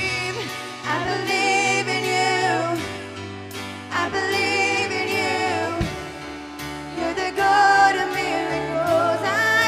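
Live gospel worship song: a woman sings with vibrato into a microphone over held chords and bass notes from the band, which change every second or two.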